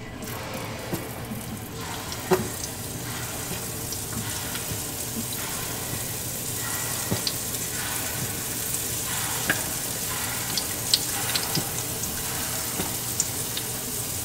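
Small dollops of panquecillo batter frying in hot oil in a pan: a steady sizzle that builds as more batter goes in, with scattered crackles and pops.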